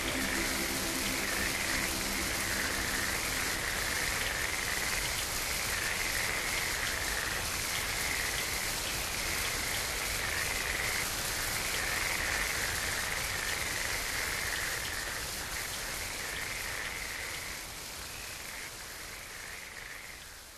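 Closing section of an experimental electronic music track: a steady hiss like rain or surf with a higher wavering layer that swells and dips about once a second. Low sustained tones drop out about three seconds in, and the whole sound fades out near the end.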